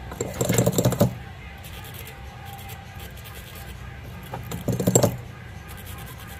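Small metal tools clinking and rattling on a phone-repair bench, in two short bursts of rapid clicks: about a second long near the start, and a shorter one about five seconds in.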